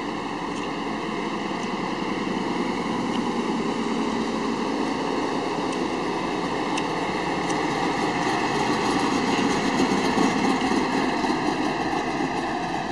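Engine of an orange early-1970s Chevrolet Camaro running as the car drives slowly past at low speed, growing louder as it approaches and loudest about ten seconds in as it passes close.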